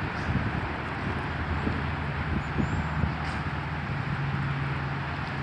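Helicopter running steadily: a low hum under an even rushing noise.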